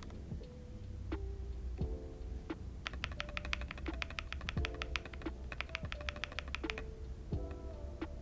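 Typing on a modded Redragon Lakshmi K606R mechanical keyboard with lubed Outemu red switches and O-rings under the keycaps. Single keystrokes, then quick runs of clicks about three and five seconds in. Soft background music plays underneath.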